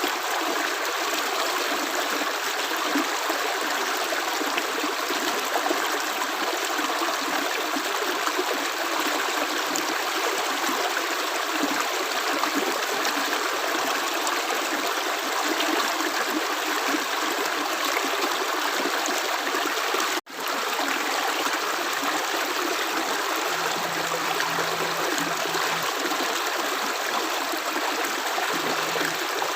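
Running water of a stream, a steady even flow with no separate drips, cutting out for a split second about two-thirds of the way through.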